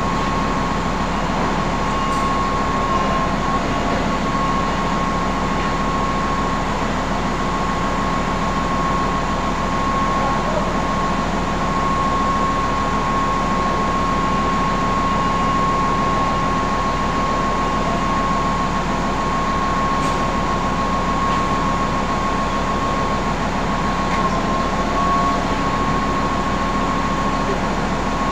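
Steady drone of industrial machinery running, with a constant high-pitched whine over it and no change throughout.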